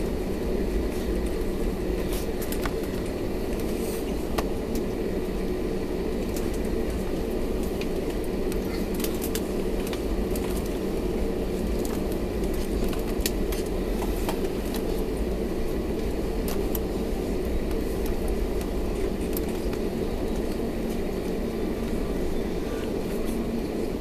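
Inside the cabin of an Airbus A320neo taxiing: a steady hum from the engines and a low rumble from the wheels rolling, with scattered light clicks and rattles.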